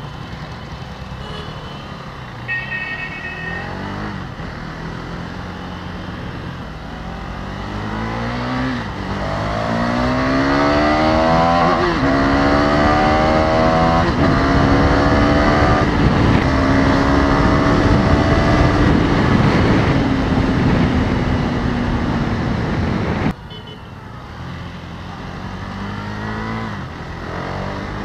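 KTM Duke 390's single-cylinder engine accelerating hard through the gears, its pitch climbing and falling back with each upshift, then running at a steady high pitch at speed under heavy wind noise until the sound drops off suddenly near the end. A short vehicle horn toot sounds about two and a half seconds in.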